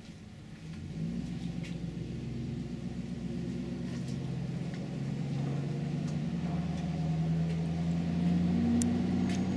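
An engine running nearby with a steady hum, growing gradually louder, its pitch rising slightly near the end before it cuts off suddenly.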